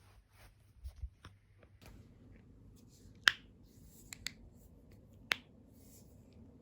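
Human joints cracking: a handful of separate sharp pops. The loudest is about three seconds in, two smaller ones follow close together a second later, and another comes about two seconds after the loudest, with soft low thumps about a second in.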